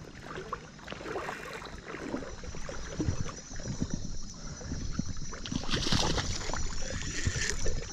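Water splashing and sloshing with scattered small knocks and handling noise, as a hooked smallmouth bass is brought in and landed; loudest about six seconds in.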